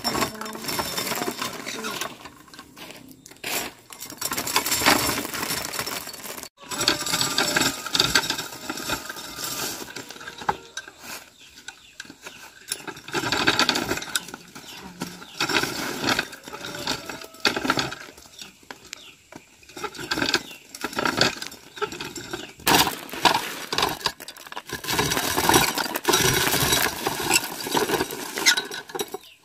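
Hand-cranked cast-iron corn sheller stripping kernels off dried corn cobs: a dense, irregular clatter of hard kernels rattling and dropping.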